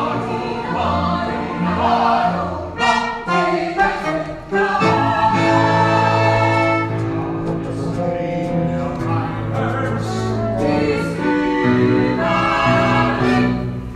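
Choir-like ensemble singing with instrumental accompaniment, in long held notes over a steady bass.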